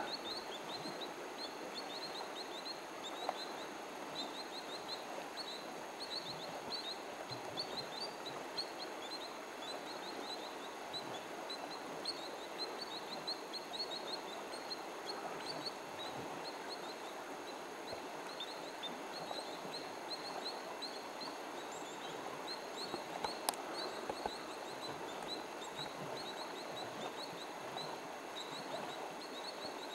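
Small birds chirping in quick, high, repeated notes over a steady outdoor background hiss, with one sharp click about two-thirds of the way through.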